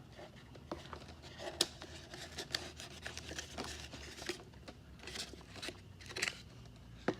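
Hands working on the RC jet's parts: irregular small clicks and knocks with rustling and scraping of plastic and tape in between.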